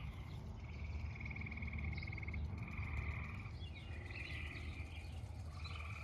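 Frogs calling: a chorus of pulsed trills, each lasting about a second, one after another, with a few short higher chirps and a low steady rumble underneath.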